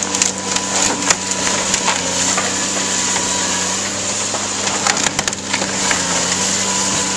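A CAT 336D hydraulic excavator running steadily while its arm tears into a wood-framed building, with timber cracking and splintering and debris crashing down. The cracks come in clusters, thickest near the start and again about five seconds in.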